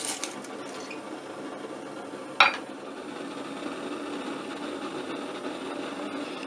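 A single sharp metallic clink with a brief ring about two seconds in, steel striking steel, over a steady low rushing noise.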